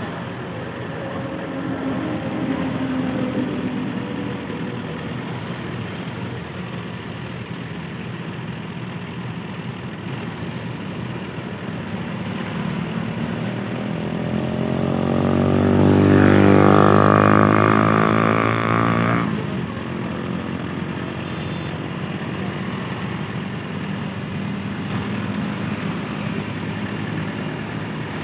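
Heavy diesel engine running steadily, then revving up about halfway through, rising in pitch and staying high for a few seconds before dropping back suddenly to a steady idle.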